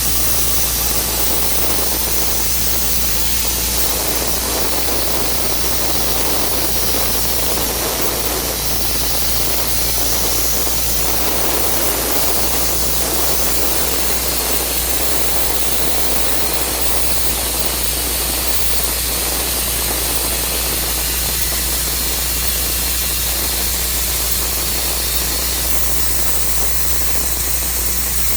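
Portable sawmill running steadily, its engine and saw blade cutting through a black walnut log. The noise swells for a while from about 4 to 11 seconds in, then settles back to an even level.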